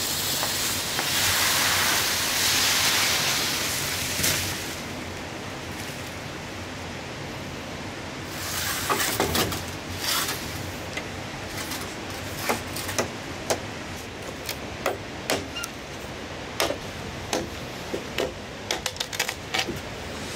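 Machete chopping green bamboo: a string of sharp, irregular knocks through the second half. Early on there is a louder rustling hiss, and the steady rush of the river runs underneath.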